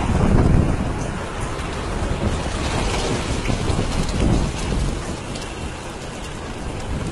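Heavy rainstorm: a dense, steady rush of rain with low rumbling swells, loudest about half a second in and again around four seconds.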